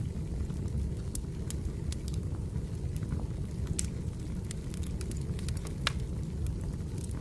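Firewood burning: a steady low rumble of flames with irregular sharp crackles and pops, one of the loudest about six seconds in.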